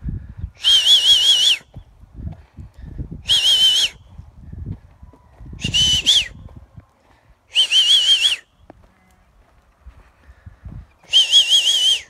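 A person whistling a short warbling call five times, a few seconds apart, each call wavering up and down several times in under a second.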